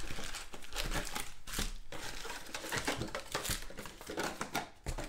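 Trading card pack wrappers crinkling and tearing as packs are ripped open and handled, in irregular crackling bursts.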